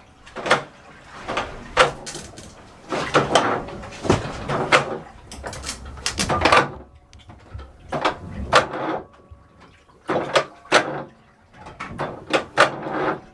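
Irregular knocks and clunks on wood, roughly one a second, some ringing briefly.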